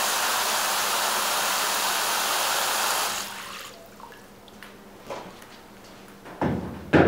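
Water from a hose running into a shallow tray, a steady rush that dies away about three seconds in. A few light knocks follow, with a louder thump near the end.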